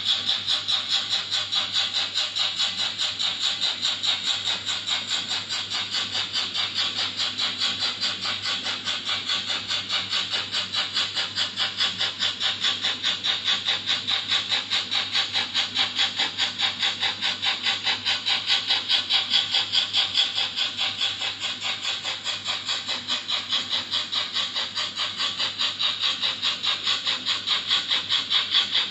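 Märklin model steam train running, with a fast, even, rhythmic hissing pulse and a steady low hum underneath.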